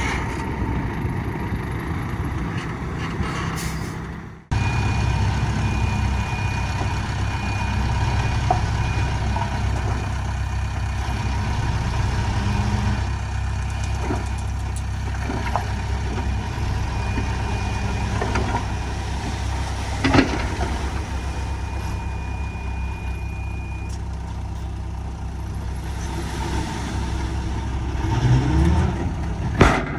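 Heavy diesel engine of earthmoving machinery running steadily, with a faint high whine over it. The sound drops out abruptly about four seconds in and picks straight back up. The engine revs up near the end.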